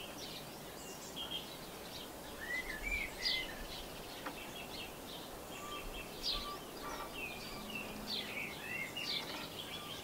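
Outdoor birdsong: scattered short chirps and whistled notes from songbirds, over a low background hiss. The notes come in small clusters, with some quick falling sweeps and a few short rising-and-falling whistles.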